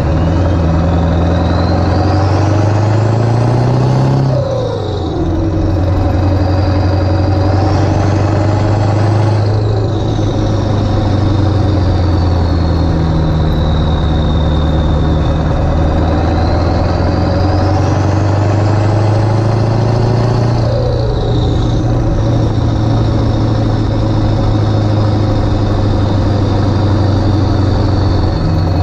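Ford 7.3 Powerstroke V8 turbo-diesel, fitted with 160/30 injectors, pulling hard under acceleration. A high turbo whistle climbs with each pull and drops off three times, about 4, 9 and 20 seconds in, over the engine's deep, steady running.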